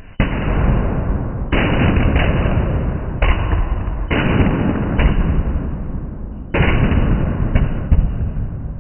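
Fireworks going off: about five loud bangs in quick succession, each trailing off into a crackling hiss, with smaller sharp cracks in between.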